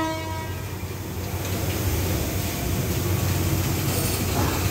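A train horn's chord cuts off about half a second in. It leaves the steady low rumble of the standing train's diesel locomotive engine idling.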